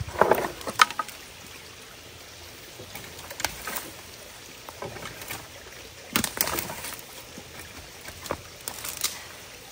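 Water splashing and sloshing as debris is worked loose in a clogged culvert. It comes as short, sharp splashes and knocks, a cluster in the first second and single ones every couple of seconds after, over a steady low water sound.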